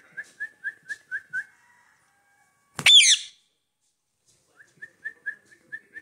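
Rose-ringed parakeet giving one loud, harsh screech about three seconds in, between runs of quick whistled notes, about four a second, at the start and again near the end.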